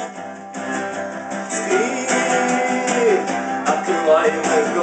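Acoustic guitar strumming the instrumental intro of a song played live.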